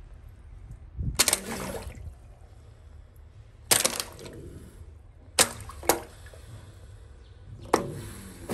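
A young crocodile snapping at a plastic bottle held at its snout: about five sharp snaps spread out, each with a brief splash or crackle as its jaws hit the bottle and the water.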